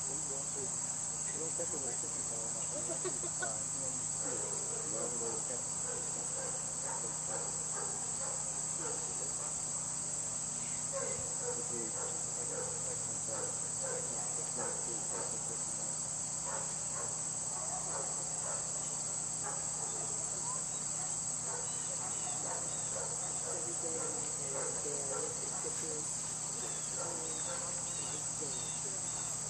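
Steady, unbroken high-pitched chorus of field insects in a grassy meadow.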